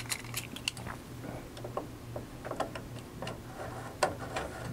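Scattered light clicks and taps as the Corsair Dominator Airflow memory fan is handled and fitted down over the RAM modules and DIMM slot latches, the sharpest click about four seconds in, over a low steady hum.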